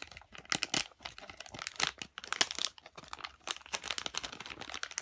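Plastic toy packaging crinkling and crackling irregularly as it is torn open and handled, with a few louder clusters of crackles.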